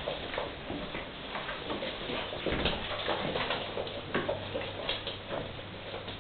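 Sealyham terrier puppies play-fighting: a busy run of scattered light clicks, taps and scuffles.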